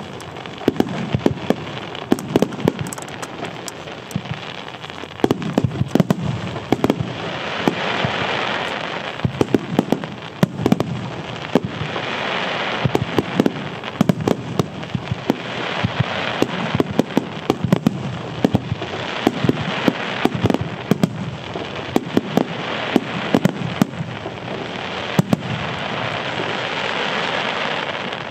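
Starmine fireworks barrage: shells launched and bursting in rapid succession, a dense run of sharp bangs, over crackling that swells and fades in waves several times.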